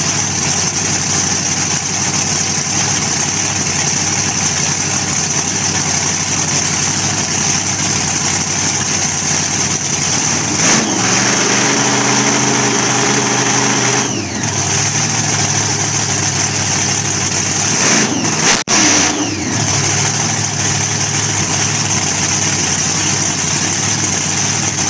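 Exposed, blower-topped engine of a hot rod pickup running loudly, revved by hand at the throttle: the revs change about halfway through, and there are a few short sharp blips a few seconds later.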